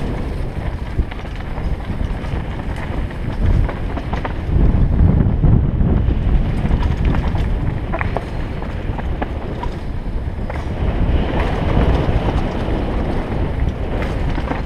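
Wind buffeting a helmet-mounted camera's microphone during a fast mountain-bike descent, with tyres running over dirt and loose stones and scattered clicks and rattles from the bike over bumps. The wind noise swells loudest about five seconds in.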